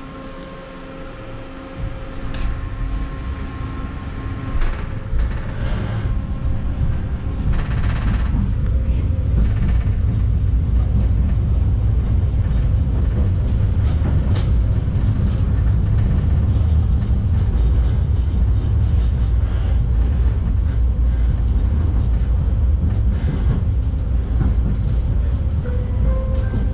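A 71-931M Vityaz-M low-floor tram heard from inside the passenger cabin as it pulls away and runs along the street. A steady hum at the start gives way to a low rumble of wheels and drive that builds over the first ten seconds and then holds steady, with a few short clicks.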